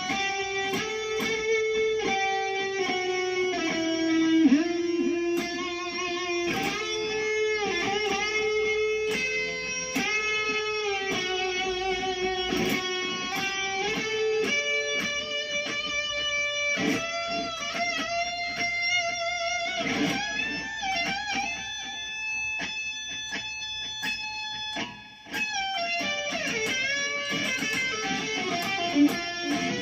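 Electric guitar played through a Cuvave unit into a small computer speaker: a lead line of sustained notes with bends and vibrato, with a short break about 25 seconds in.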